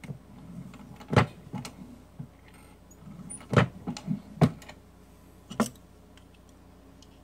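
A hand-operated single-stage reloading press being worked to seat a bullet in a 224 Valkyrie case: a handful of sharp metallic knocks and clicks, the loudest about a second in and again around three and a half, four and a half and five and a half seconds in.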